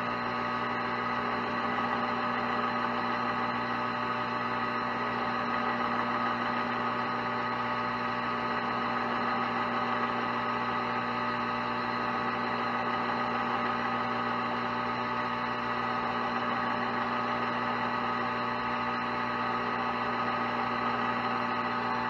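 Metal lathe running at a steady speed, giving a constant hum with several higher steady tones, while brass round stock spinning in its chuck is hand-sanded with sandpaper.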